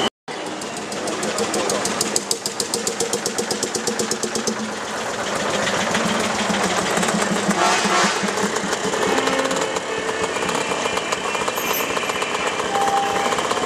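An old motorcycle engine running past with a rapid, even putter. A Barkas B1000 van with a three-cylinder two-stroke engine follows it by.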